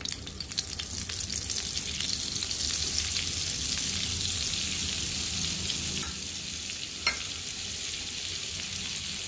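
A lump of butter sizzling and frothing as it melts in hot oil in a black pan, heated for a tadka (tempering). The hiss is steady and eases a little about six seconds in, with one brief click about a second later.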